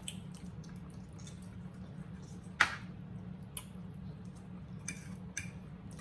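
Eating sounds from people working on roasted pork neck bones: a few scattered wet smacks and clicks, the loudest about two and a half seconds in, over a steady low hum.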